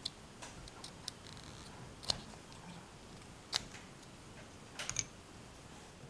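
Faint, scattered small plastic clicks and ticks as a microwave door microswitch is pried apart by hand. The sharpest come about two and three and a half seconds in, with a quick cluster near the end.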